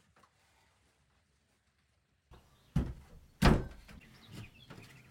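Near silence for about two seconds, then two dull thuds on wood a little under a second apart, the second the loudest, followed by fainter knocking and rustling as work goes on in the wooden tree house.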